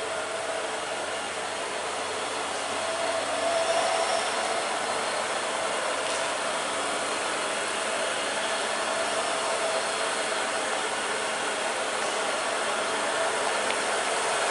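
A Mitsubishi Fuso heavy truck's engine running steadily as the truck crawls slowly forward under load. It makes a steady hissing mechanical noise with a faint whine, growing a little louder a few seconds in.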